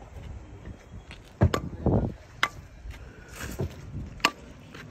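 Hand tools striking stone and gravel while a curb stone's gravel bed is worked: a few sharp, separate knocks and one duller, louder thud about two seconds in.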